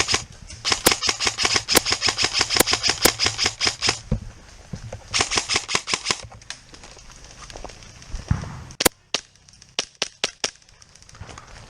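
Airsoft guns firing: rapid strings of sharp shots for the first few seconds, another string around the middle, then a few single shots near the end.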